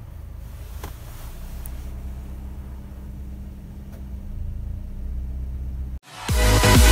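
Car engine idling, heard from inside the cabin as a steady low rumble, with a faint click about a second in. About six seconds in it cuts off and loud electronic dance music starts.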